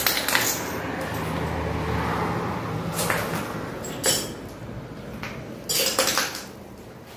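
A few sharp clinks and knocks, about three and four seconds in and twice more near six seconds, over a steady noise that fades after the first few seconds.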